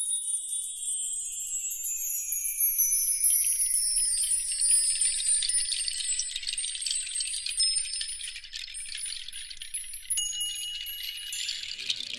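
Intro sound effect of shimmering, tinkling chimes that sweep slowly downward in pitch, loudest in the first few seconds and gradually fading, with a few brief high pings near the end.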